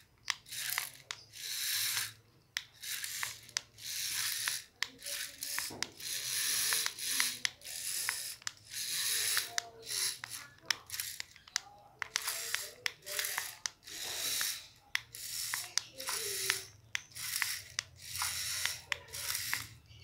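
Small hobby servo whirring through its gears in short bursts, over and over, as it swings the front wheels of a DIY RC truck left and right through a tie-rod linkage, with clicks in between.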